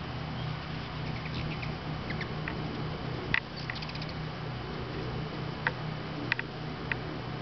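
Hummingbirds giving short, high-pitched chip calls, some single and some in quick little runs, the sharpest about three and a half seconds in, over a steady low hum.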